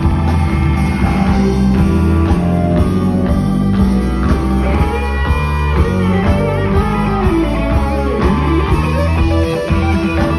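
Electric blues guitar solo played live through an amplifier, with sustained and bent notes, backed by a drum kit.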